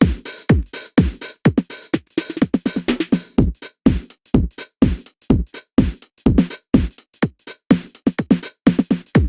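Sampled drum kit from the Ketron SD90 SF2 soundfont playing a steady beat: deep drum hits that drop in pitch, about two to three a second, over a steady cymbal or hi-hat.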